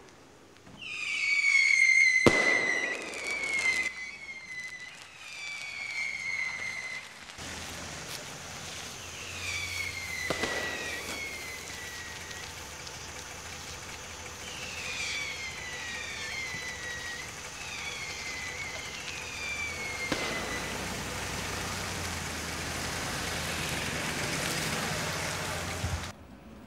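Fireworks going off in the street: a run of whistling fireworks, each giving a short falling whistle, several in quick succession, with a few sharp bangs among them.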